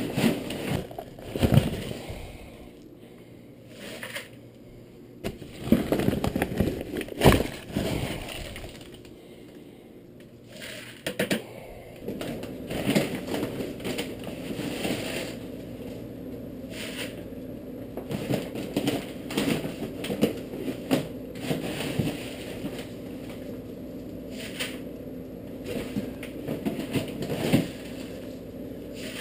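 Dry grain being scooped out of a paper feed sack and dumped into a plastic 5-gallon bucket: irregular rattling pours of grain and crinkling paper, in bursts with short pauses between.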